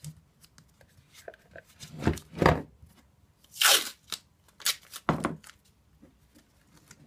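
Masking tape being pulled off the roll, torn and pressed down over the flange of a metal thermostat housing, in several short rasping bursts.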